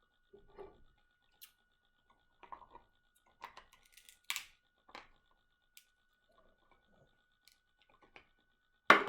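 King crab shell being cracked and picked apart by hand: scattered short crunches and scrapes, with one loud sharp crack near the end.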